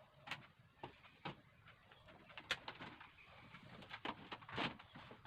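A series of light, irregular clicks and taps, about seven in all, two of them close together about two and a half seconds in, over a faint low hum: hands and tools working on an LED TV being opened up.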